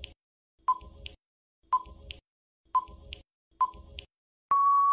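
Countdown timer sound effect: a short beep about once a second, then one longer, steady beep near the end, marking time up.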